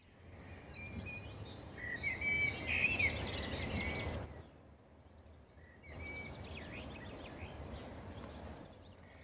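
Small birds chirping over a steady background hush. The chirping is busiest in the first four seconds, stops for about a second and a half, then resumes more faintly.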